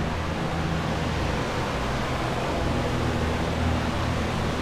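Steady whir and hum of flood-drying equipment, commercial dehumidifiers and air movers running together, a constant rush of air over a low motor hum.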